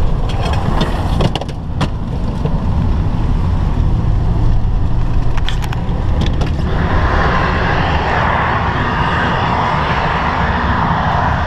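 A vehicle driving on a rural road, heard from inside the cab as steady low road and engine rumble, with a few sharp clicks in the first two seconds. About seven seconds in, a loud steady rushing roar joins in and holds.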